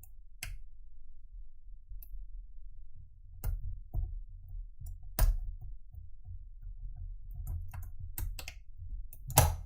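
Single pin picking a Blossom padlock: the pick and tension wrench make scattered small metallic clicks against the lock's pins, over a low handling rumble. A louder sharp click comes near the end.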